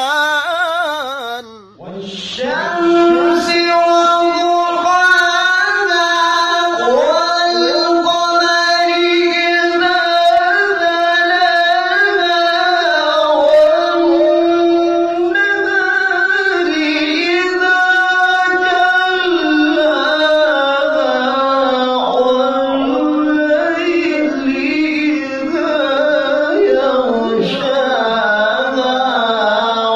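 A male Quran reciter (qari) voicing long, ornamented held notes in the melodic tilawah style. The line stays on one high note for long stretches, then moves lower toward the end. A short break about two seconds in separates it from a wavering note before.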